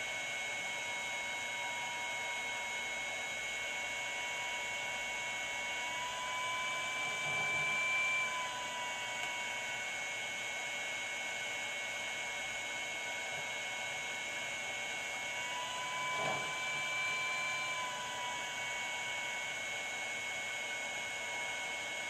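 Steady whir and hum of a T-862++ infrared rework station running with its IR lamp heating a graphics-card chip for solder reflow, with a faint steady whine over it. It grows slightly louder twice, about a third of the way in and again past two-thirds.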